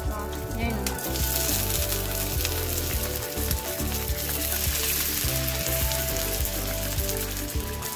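Vegetable broth poured into a hot nonstick frying pan around a frying flour-based vegan chicken patty, sizzling and spitting as it hits the hot oil. The sizzle swells about a second in and then holds steady.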